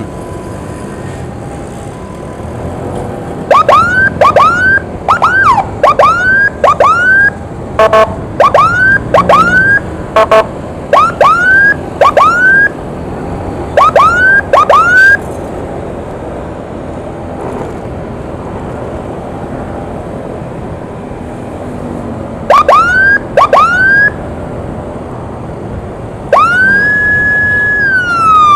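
Emergency vehicle siren giving bursts of short rising whoops, about two a second, with pauses between the bursts. Near the end it rises into one long held tone that starts to fall into a wail. Steady traffic and engine noise runs underneath.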